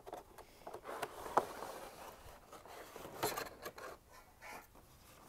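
Packaging handled by hand: a cardboard box being opened and paper inserts shuffled against a clear plastic tray. Irregular rustling and scraping, with a sharp click about a second and a half in.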